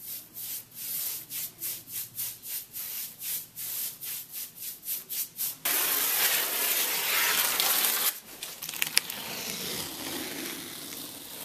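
Paintbrush swishing back and forth over a strip of blue painter's tape, about three or four strokes a second. About six seconds in the tape is peeled off the trim in one long, loud rip, followed by a few light clicks and quieter rustling of the tape.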